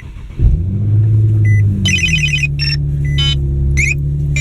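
An Infiniti G37's 3.7-litre V6 starting about half a second in, running at a raised speed for about a second and a half, then settling to a steady idle. Short electronic beeps and a series of chime melodies from the car sound over the idle.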